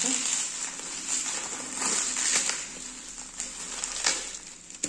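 Bubble wrap crinkling and crackling as it is handled and pulled open by hand, with a sharper crack about four seconds in.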